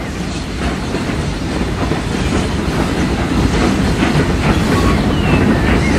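Steam train approaching and growing steadily louder, its wheels clattering over the rail joints.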